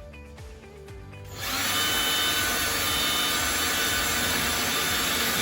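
Power drill running at a steady speed for about four seconds, starting a little over a second in and stopping near the end.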